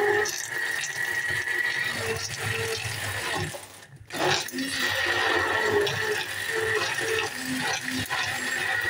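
Electric hand blender running in a steel container, its motor whining steadily as the blade churns apple and pomegranate pieces with water into a smoothie. The motor drops out briefly about four seconds in, then runs again.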